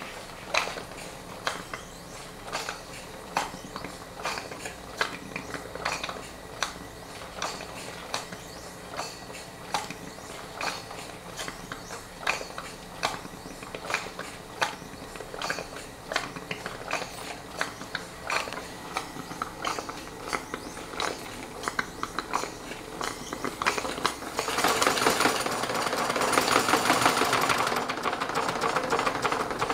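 Model sternwheeler steam engine running on steam from a small boiler, beating slowly and evenly. About 24 seconds in it turns louder, with a rush of steam and faster beats, as the steam valve is worked.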